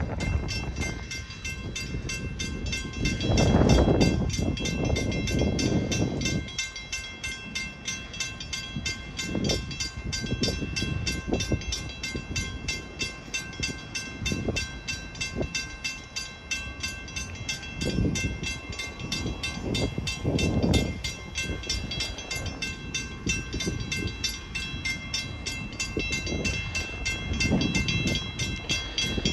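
A train approaching in the distance, its low rumble rising and falling a few times, over the steady rapid ringing of a grade-crossing bell.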